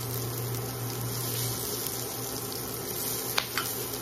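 Minced garlic, ginger and sliced onions sizzling in hot oil in a wok, with a steady low hum underneath. Two sharp ticks about three and a half seconds in, from the spatula or bowl against the pan.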